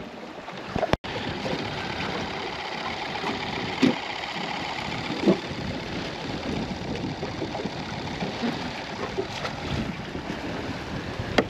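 Steady wind and water noise around a small open boat, with a few short light knocks.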